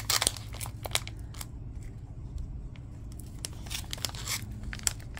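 Plastic packaging crinkling and crackling in irregular bursts as someone struggles to get a sealed bag open.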